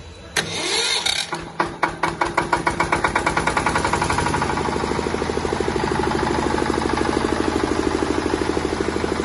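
A 10 kVA diesel generator's engine starting: a sudden noisy burst, then separate firing beats that quicken over the first few seconds and settle into a steady, rhythmic run.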